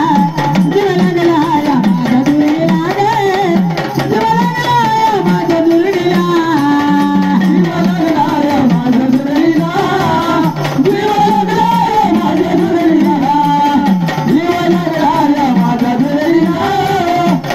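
Marathi jagran gondhal folk song: a singer's ornamented, gliding melody over drum accompaniment, loud and continuous.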